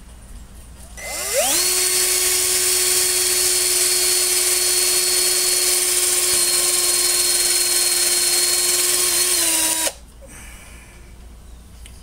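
Power drill spinning up about a second in and running at a steady speed with a high whine. The pitch sags slightly just before the drill stops abruptly, near ten seconds in.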